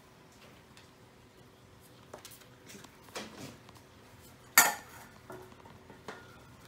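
Scattered light clicks and knocks from a German Shepherd puppy moving about on a concrete floor, with one sharp, ringing metallic clink about four and a half seconds in.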